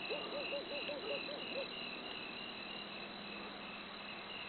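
Crickets chirping steadily, about two to three chirps a second. Near the start an animal gives a quick run of about eight short, low, arched notes.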